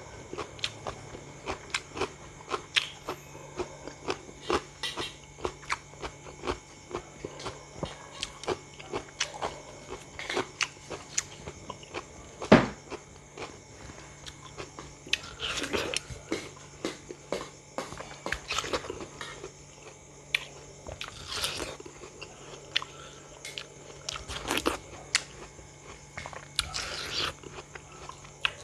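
Close-miked eating sounds: crisp bites and chewing of raw fruit in a steady run of short crunches. One sharp, loud bite comes about twelve seconds in, and longer, fuller crunches follow in the second half.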